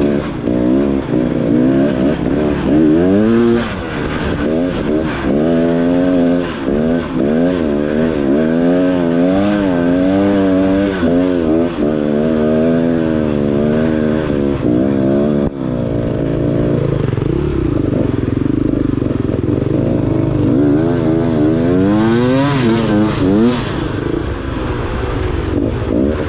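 Beta enduro dirt bike engine on the trail, its revs rising and falling about once a second as the throttle is worked. About two-thirds of the way through it drops back to a lower, steadier note, then revs up hard for a couple of seconds near the end.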